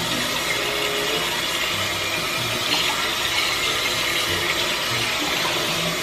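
Kitchen faucet running steadily into a stainless steel sink while a bowl is rinsed under the stream.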